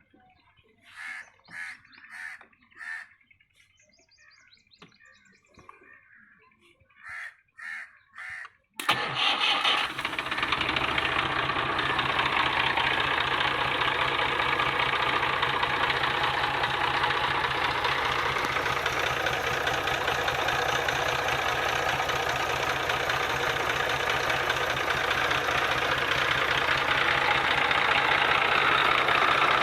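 A bird calls in short repeated calls, then about nine seconds in the Massey Ferguson tractor's diesel engine is started on the battery and catches, running steadily from then on.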